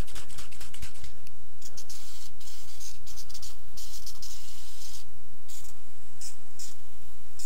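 Aerosol can of chemical paint stripper spraying in several hissing bursts with short pauses between them, over a steady low hum.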